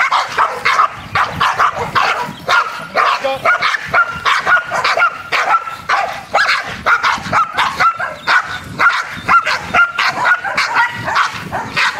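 Guard dogs barking rapidly and without pause, several barks a second, at a decoy closing in on the handler they are protecting in protection training.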